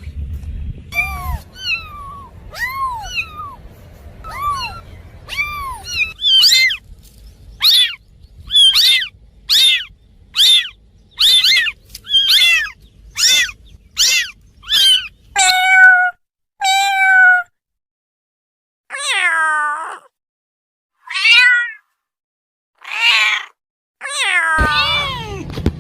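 Cats and kittens meowing, a run of short high-pitched meows. Faint ones come first, then a quick series of loud meows about two every second, then a few longer separate meows broken by dead silences, as at cuts between recordings.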